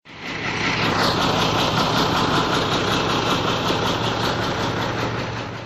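Iveco Eurotech truck's diesel engine running cold at idle, a loud, steady, evenly pulsing run that eases off near the end.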